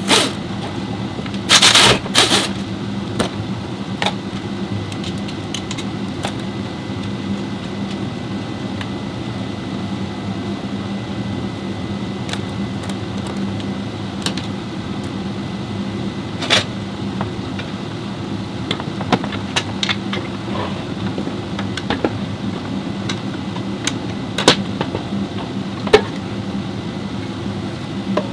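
Steady low mechanical hum with scattered sharp metallic clinks and knocks, as of tools being handled while working on a car; the loudest knocks come about two seconds in.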